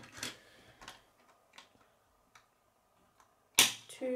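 Hard plastic K'nex rods and connectors clicking and tapping as they are handled and pushed together, a few scattered clicks, then one loud sharp snap near the end as a connector snaps onto a rod.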